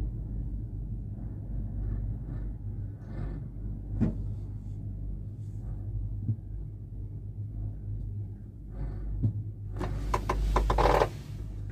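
Low steady rumble and hum inside a moving gondola cabin travelling on its cable, with a few single light knocks and a louder burst of clatter near the end.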